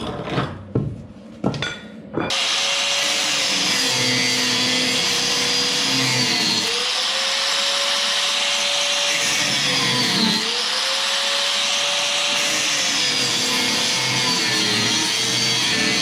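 A few knocks, then a handheld electric power tool starts about two seconds in and runs steadily. Its motor pitch sags twice under load and recovers.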